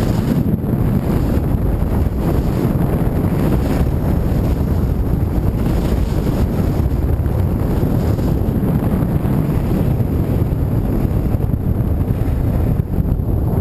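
Wind rushing over a pole-held action camera's microphone during a ski run downhill: a steady, loud low rumble.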